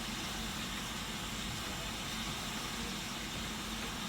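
A standing railway locomotive making a steady low hum with a continuous hiss over it.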